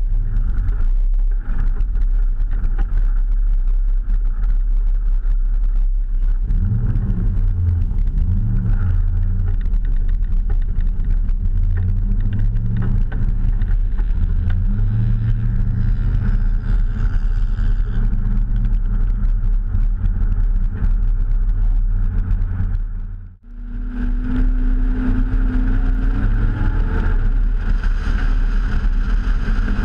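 Car engine running and changing pitch as the car drives on snow, heard from outside the car with heavy wind noise on the microphone. The sound drops out briefly about three-quarters of the way through, then the engine comes back with its note climbing.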